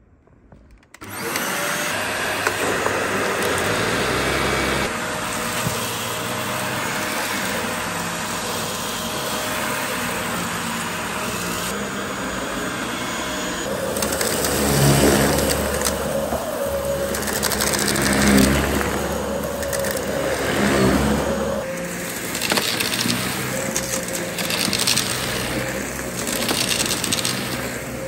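Dyson DC41 Animal Mark II upright vacuum cleaner switched on about a second in and running with a steady motor whine. From about halfway it is pushed back and forth over dirt, its sound swelling and falling with each stroke, with grit crackling as it is sucked up.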